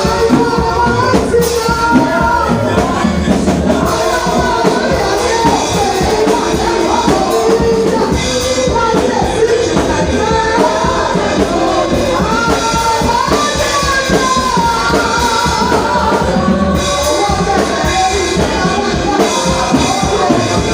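Church praise and worship music: voices singing over a band with drums.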